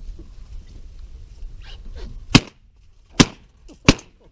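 Shotgun fired three times in quick succession, the shots less than a second apart.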